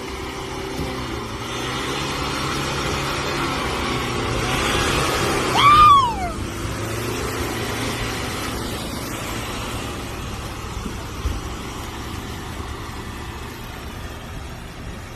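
Off-road vehicle engine running and building up in level over the first five seconds, then settling. Near six seconds a short, loud, high-pitched cry rises and falls in pitch over the engine.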